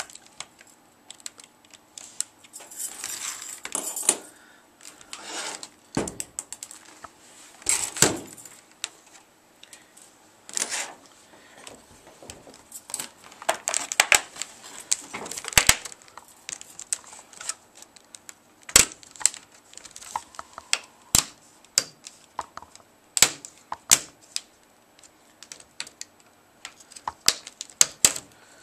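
Plastic screen bezel of a Sony VAIO notebook being pried off by hand: irregular sharp clicks and snaps as its clips let go, with a few short stretches of plastic scraping.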